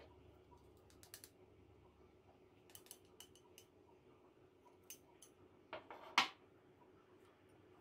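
Light clicks and taps of chopsticks against a ceramic sauce bowl and plate while sauce is poured, then a louder clack about six seconds in as the bowl is set down.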